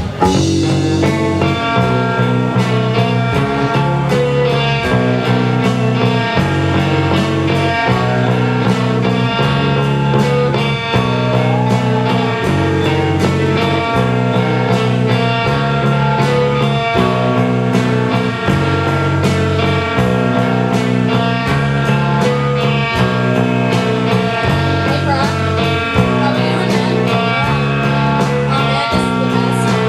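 Rock band playing live: guitar chords over bass and drums in a steady rhythm, the chords changing about once a second.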